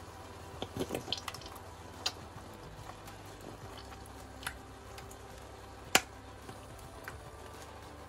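Cream poured and squeezed from a carton into a hot frying pan of cooked mushrooms: scattered drips, small pops and carton clicks, a cluster about a second in and the sharpest single click about six seconds in. A steady low hum runs underneath.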